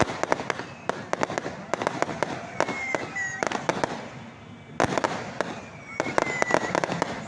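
Fireworks and firecrackers going off in rapid, irregular bangs and crackles, with a few short, high whistling tones.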